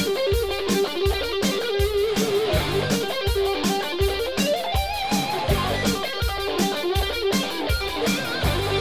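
Rock music: a wavering electric guitar lead over a steady drum beat.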